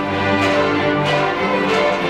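A children's string orchestra, mostly violins, plays a folk-style tune together in sustained bowed notes that change about every half second.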